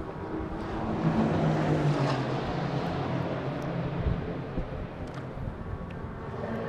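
Race-car engines running on the circuit, heard as a steady engine drone that swells about a second in and eases near the end.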